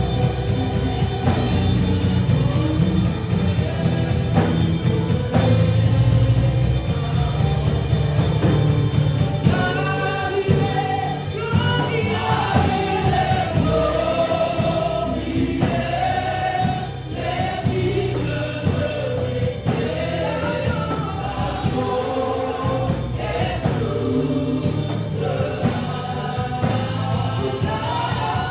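Choir singing a gospel worship song over a band, with the sung melody coming forward about a third of the way in.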